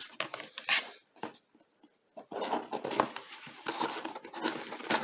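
Packaging being wrestled open by hand: irregular rustling, scraping and crinkling, with a short pause between one and two seconds in.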